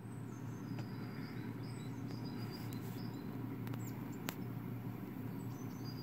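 Small birds chirping in short high notes, played back from a bird video through computer speakers, over a steady low hum.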